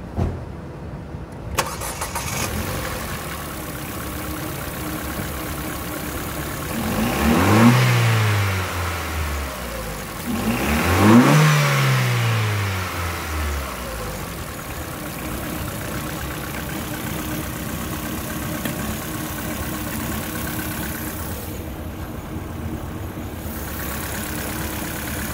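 A 2013 Ford Fiesta's petrol engine starts about a second and a half in, then idles. It is revved twice, rising and falling back each time, and settles back to a steady idle.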